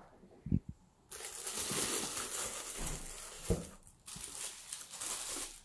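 Plastic bubble wrap crinkling as a wrapped statue piece is handled and unwrapped, in two stretches with a short break about four seconds in.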